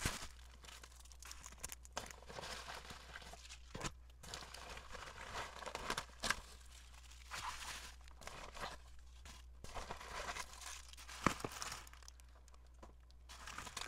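Bubble wrap and plastic candy wrappers crinkling and rustling in irregular bursts as they are handled, with a sharp click about eleven seconds in.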